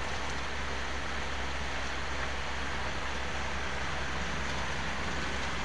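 Steady engine and road noise inside a truck cab while driving: a low drone under an even hiss.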